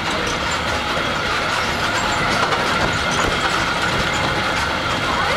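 Resort tram running steadily along a paved walkway, heard from its back seat: a continuous rumble of the wheels and drivetrain with a steady whine on top.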